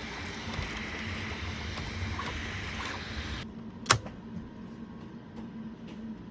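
Steady mechanical hum with hiss that drops abruptly to a quieter background a little past halfway, followed by a single sharp click.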